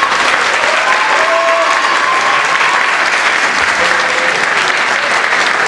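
Crowd applauding, a steady dense clapping from the audience and the students on stage, with a few voices calling out over it.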